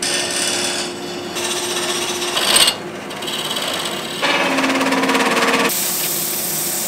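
Wood lathe running as a hand-held turning tool cuts into a spinning wooden blank, the sound changing abruptly several times, with a brief louder burst about two and a half seconds in. Near the end, sandpaper pressed against the spinning piece gives a steady hiss.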